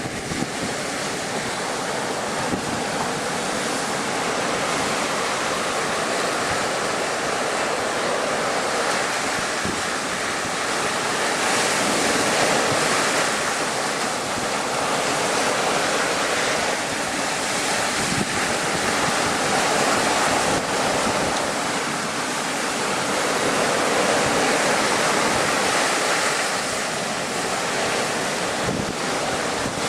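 Storm waves surging and breaking against a sea wall at high tide, with wind buffeting the microphone. The surf noise swells and eases every several seconds.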